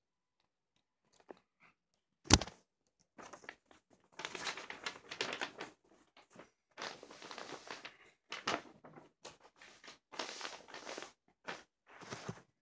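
A CD case being handled and opened: one sharp plastic click about two seconds in, then irregular rustling and crinkling as the case and its paper booklet are handled.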